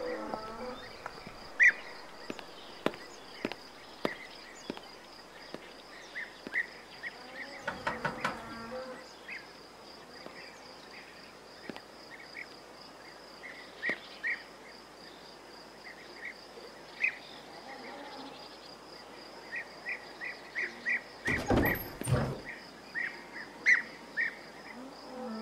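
A steady, pulsing insect trill, with many short high chirps over it and scattered light clicks and knocks. About three-quarters of the way through comes one louder thump.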